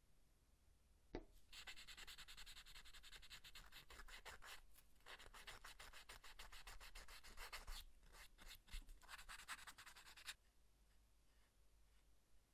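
Abrasive paper rubbed in fast back-and-forth strokes along the cut edge of a thin veg-tan leather piece, sanding the edge smooth, with two short pauses before it stops. A single short click comes just before the sanding starts.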